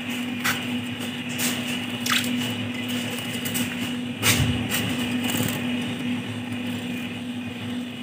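Budgerigar bathing in an earthenware water pot: wet splashing and squishing as it dips into the water, in short separate bursts, the loudest about four seconds in. A steady low hum runs underneath.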